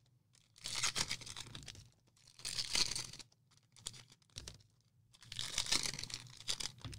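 Plastic wrappers of trading card packs being torn open and crinkled by hand: three short bouts of ripping and rustling, with a couple of light clicks between.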